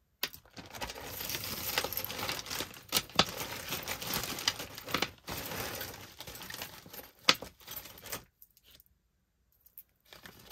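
A long multi-strand metal chain necklace with beads being handled and spread out, its chains rustling and jangling with a few sharper clinks; it stops about eight seconds in.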